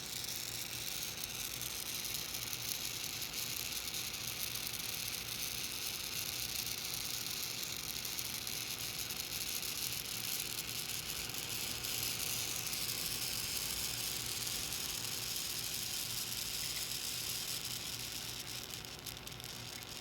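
Continuous inkjet printer running its ink system: a steady hiss with a faint high whine and a low hum underneath.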